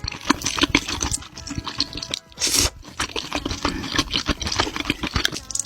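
Close-miked eating sounds: chewing with many quick wet clicks, smacks and crunches, and a longer noisy slurp-like burst about two and a half seconds in.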